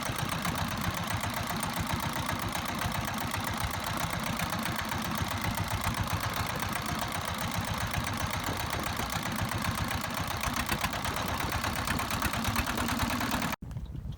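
Small fishing boat's engine running steadily, with a dense low pulsing; it cuts off suddenly near the end.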